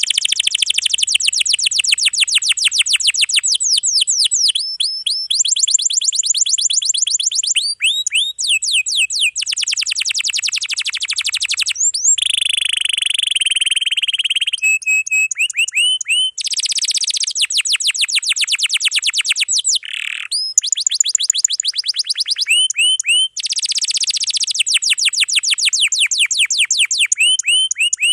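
Domestic canary singing a fast, dense song almost without pause: long rolls of rapidly repeated notes, broken by short phrases of rising and falling whistled glides.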